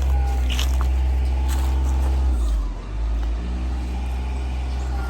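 A steady, low engine-like hum, dipping briefly about halfway through before carrying on.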